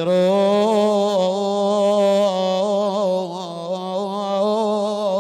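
A man chanting an Iraqi mourning lament, drawing out one long sung note that wavers gently with vibrato before the next word.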